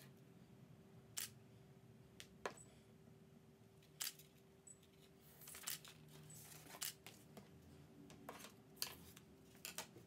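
Faint, scattered clicks and light taps of craft supplies (a glue bottle and a paper paint plate) being handled and lifted off a tabletop, over a steady low room hum.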